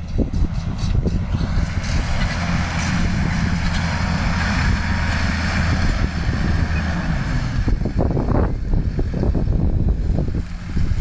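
Fendt 926 Vario tractor's six-cylinder diesel engine running steadily under load while pulling a disc harrow through the soil, with a hiss over it that drops away about three quarters through. Wind buffets the microphone throughout.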